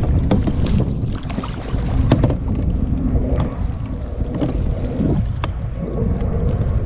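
Wind buffeting an action camera's microphone as a low, uneven rumble, with water lapping against a plastic kayak hull and a few sharp clicks.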